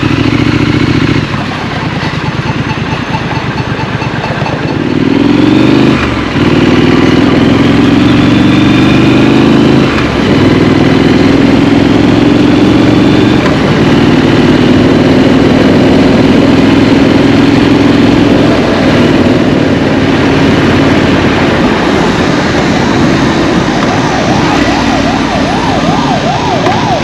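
Scrambler motorcycle engine heard from the rider's seat, revving up through the gears with short breaks at each shift, then running steadily at speed. Near the end an emergency-vehicle siren starts up, wavering quickly up and down.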